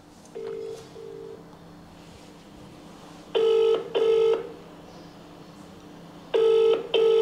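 Telephone ringing tone from an outgoing call, heard through a mobile phone: three double rings, each two short beeps of the same low tone, about three seconds apart. The first double ring is faint and the next two are loud. The line is ringing and not yet answered.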